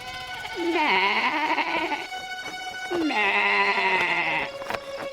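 Lamb bleating twice. Each bleat is a wavering call of a second or so that falls in pitch; the first comes about a second in and the second about three seconds in.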